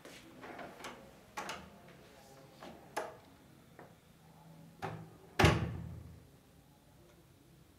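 Room door opening and shutting: a series of clicks and knocks, then one heavy thump about five and a half seconds in.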